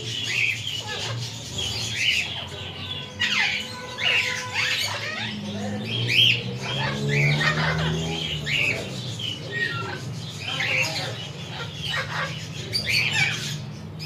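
Parakeets squawking: a steady stream of short, sharp calls, one or two a second, over a low background murmur.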